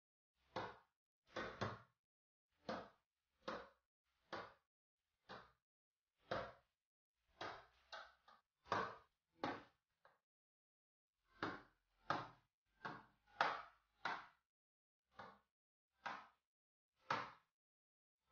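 Small magnetic rods and steel balls clicking together as they are attached to a magnet sculpture: a string of sharp metallic clicks about one a second, some in quick pairs.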